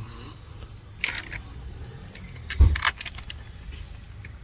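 Metal hand tools and bolts clinking during work on a car's gearbox housing, with a heavy thump about two and a half seconds in and a steady low hum underneath.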